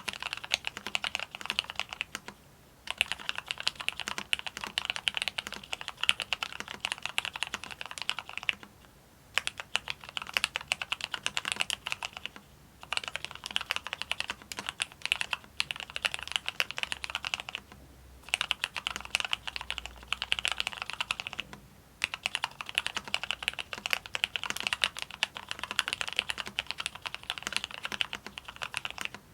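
Mechanical keyboard with Cherry MX Black linear switches being typed on fast, a dense stream of clacking keystrokes. It comes in runs of several seconds broken by short pauses, about five times.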